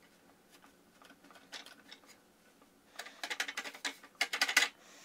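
A cloth scrubbing the inside of a food mixer's plastic housing in quick rubbing strokes, in two short bursts in the second half, after a few light scuffs. The cloth is wiping away dust and exploded-capacitor residue.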